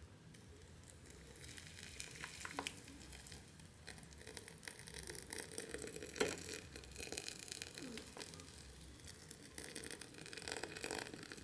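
Faint fizzing and crackling of a compressed substrate block soaking up hot water in a pot as it swells, with a few light clicks.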